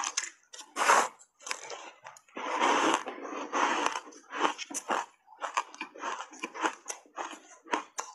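Block of ice coated in matcha powder being bitten and chewed. It gives a quick run of sharp, crisp crunches, with one longer stretch of continuous crunching about two and a half seconds in.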